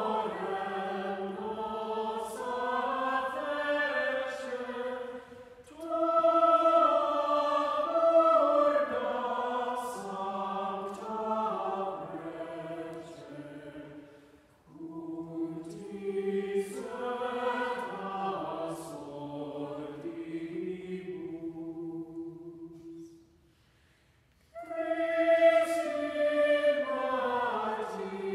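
Mixed choir of men and women singing a cappella, in long sung phrases with a brief pause for breath about 23 seconds in before the next phrase begins.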